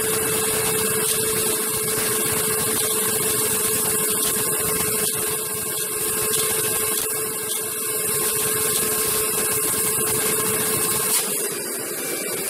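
One-cylinder Lego vacuum engine running with its throttle wide open, driving a Lego three-speed manual gearbox in first gear. It makes a steady, dense whirring rattle of plastic parts with a constant hum, and grows quieter near the end.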